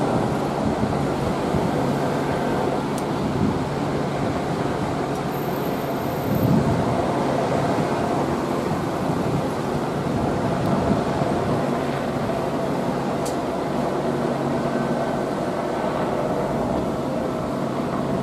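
Steady rumble of motor vehicles with a constant low engine hum.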